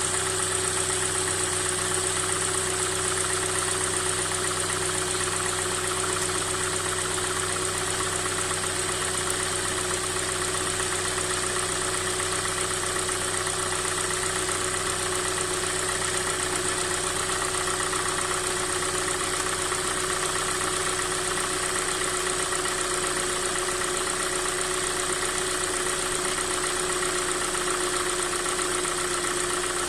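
Hyundai i40's 2.0 G4NA four-cylinder petrol engine idling cold, steady, with a knock running through it. The dealer calls the knock a design feature, and a teardown found no fault.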